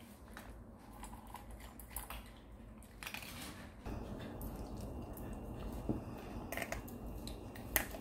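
Maltese dogs eating dry kibble from raised feeding bowls: scattered crunches and sharp clicks.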